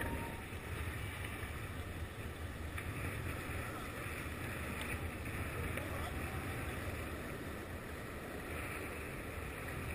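Longboard wheels rolling over asphalt: a steady low rumble, with wind on the microphone.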